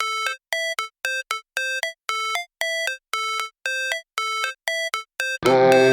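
Electronic intro music: a repeating pattern of short synth bleeps, about two a second. Near the end a full electronic track with bass comes in.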